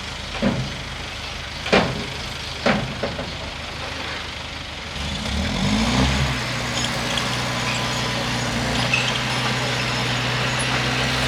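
Bulldozer diesel engine with four sharp knocks in the first three seconds. About five seconds in the engine revs up, then runs steadily at the higher speed.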